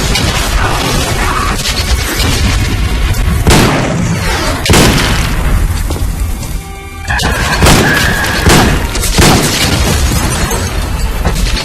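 Loud action-film soundtrack music layered with heavy booming impacts and crashing, shattering hits. A series of strong hits lands about a second apart through the middle and second half, broken by a brief drop in level just before the last few.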